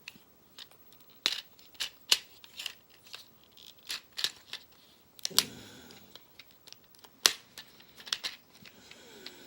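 Plastic parts of a transforming robot toy being handled and moved into vehicle mode, giving a string of sharp, irregular clicks and snaps.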